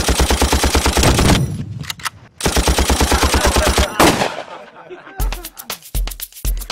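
Two long bursts of rapid machine-gun fire, each lasting about a second and a half, with a sharp bang at the end. Music with a steady bass beat comes in about five seconds in.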